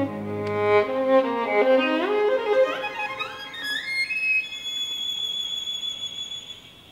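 Instrumental music accompanying a ballet duet: a low held note gives way to a melody climbing in a rising run of notes to a high held note that gradually fades.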